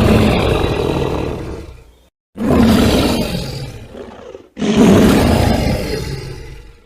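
Daspletosaurus roar sound effect: three roars in a row, each starting abruptly at full loudness and fading out over about two seconds, with short silent gaps between them.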